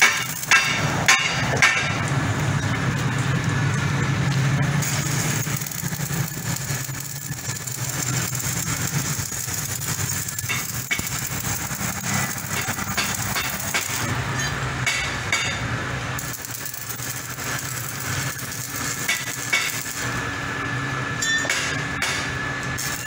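Electric arc welding on steel: the arc crackles and hisses steadily, with a few sharp cracks in the first second or two as it is struck.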